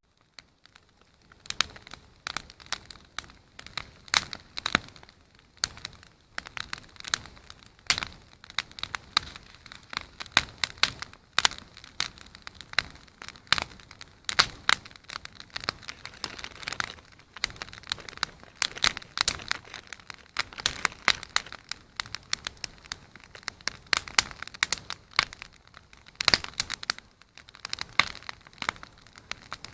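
Campfire of firewood crackling, with irregular sharp snaps and pops coming several times a second.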